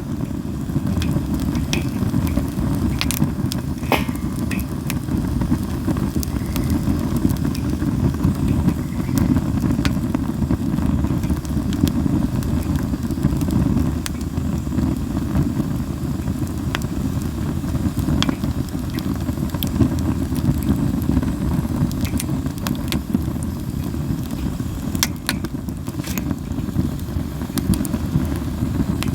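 Japanese linden (shinanoki) wood fire burning, with scattered sharp crackles and pops at irregular moments over a steady low rumble.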